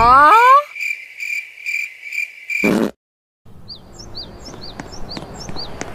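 Cartoon sound effects: a rising pitched glide ends, then a high tone pulses about twice a second and cuts off. After a brief gap, a run of short, high, falling chirps sounds over a faint background hiss.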